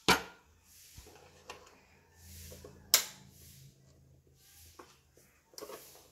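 Sharp plastic knocks of an electric hotdog waffle maker's hinged lid being handled: a knock just after the start and a louder one about three seconds in as the lid is shut over the batter, with small clicks and handling noise, and more clatter near the end as the lid is lifted.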